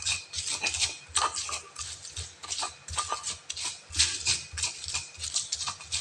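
Pestle pounding and grinding sliced shallots and garlic in a stone mortar (cobek): a quick, irregular run of knocks and gritty rubs, several strokes a second. The spices are being crushed only coarsely, into a rough paste.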